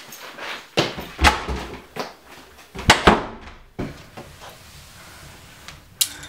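A series of sharp knocks and bangs. The loudest are about a second in and a close double bang about three seconds in, with a last sharp one near the end.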